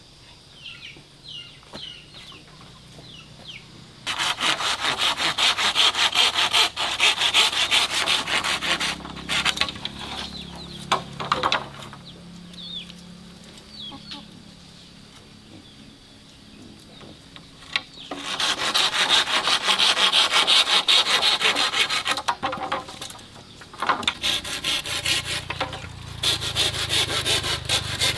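Rapid rasping strokes of a hand tool on wood, as in hand-sawing, in three long bouts with quieter pauses between them.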